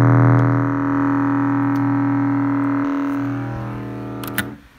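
A small 4-inch subwoofer driver playing a low steady test tone at high excursion, a buzzing hum with many overtones. It fades slowly through the last seconds, then cuts off after a couple of sharp clicks near the end.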